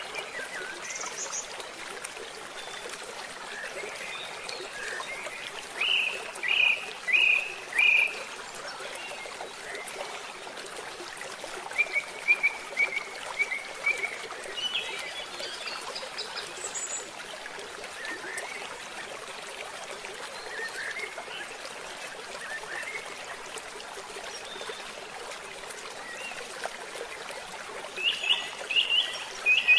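Birds calling in the trees in short runs of chirps, a few seconds in, around the middle and near the end, over a steady rush of flowing river water.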